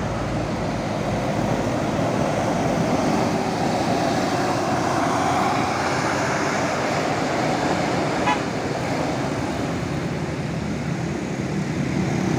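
Tour bus driving past on a hill road, its engine running steadily and a little louder in the middle, with a brief click about eight seconds in.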